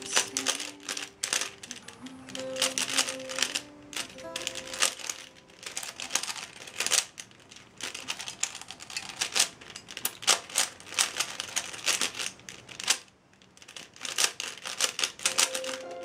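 Rapid clacking of a 3x3 speedcube's layers being turned fast during a timed solve, in quick runs of turns with brief pauses and a longer lull near the end, over background music.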